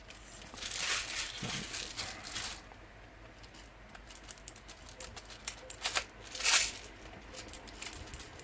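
Hand-handling noise: rustling with scattered small clicks, and a brief louder rustle about six and a half seconds in, as 0.2 g airsoft BBs are loaded into the pistol's magazine.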